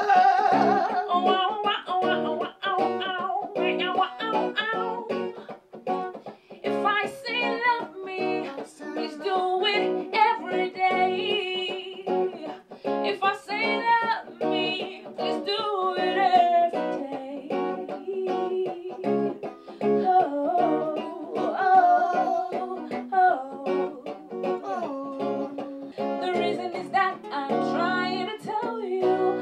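A woman singing a melody into a handheld microphone, accompanied by a clean electric guitar playing plucked notes and chords.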